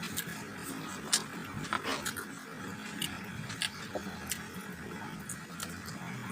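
Close-up eating sounds of mango being bitten and chewed, with scattered crisp clicks and smacks over a steady low background hum.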